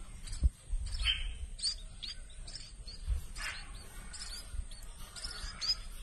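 Nestling songbirds, which the keeper takes for munias, giving short high begging cheeps again and again as they are hand-fed. A low thump about half a second in.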